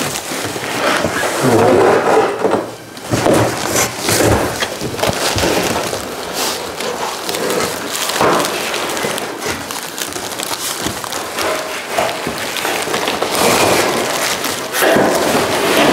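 Cardboard packaging and plastic wrap being handled and pulled apart: irregular rustling, scraping and crinkling with knocks, as a replacement sheet-metal quarter panel is unpacked from a long box.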